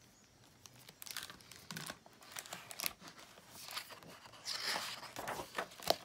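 Hands opening a hardcover picture book, its cover and pages rustling and crinkling on and off, with a sharp tap near the end as the book is laid open.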